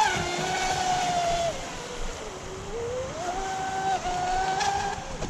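Electric motor of an RC speedboat whining under throttle. Its pitch sags just after the start and falls further about a second and a half in as the throttle eases. It rises again about three seconds in, holds steady, and drops near the end.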